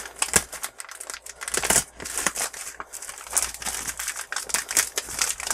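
Crinkling and crackling of a foil anti-static bag and foam packing sheets being handled and pulled apart, an irregular run of sharp crackles.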